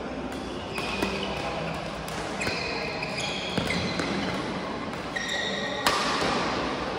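Badminton rally on an indoor court: several sharp racket hits on the shuttlecock, the loudest about six seconds in, with court shoes squeaking on the floor.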